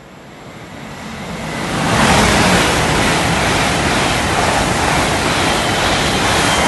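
Two coupled Great Western Railway Class 802 trains passing through the station at speed without stopping: a rushing of wheels and air that swells over the first two seconds, then holds steady and loud.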